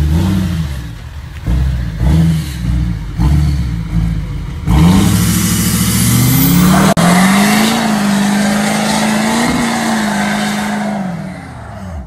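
Lifted pickup truck's engine revved in several short blips, then held at high revs with a hiss of spinning tyres over it in a burnout; the revs drop away near the end.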